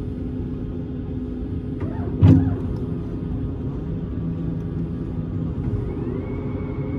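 Steady low cabin rumble of an Airbus A220-300 taxiing, heard from inside the cabin. About two seconds in there is a single loud thump. Near the end a whine rises and then holds steady.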